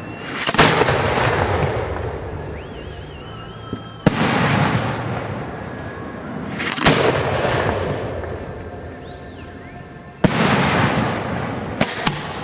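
Aerial fireworks shells bursting overhead: five sharp reports a few seconds apart, the last one smaller, each followed by a long fading crackle and rumble.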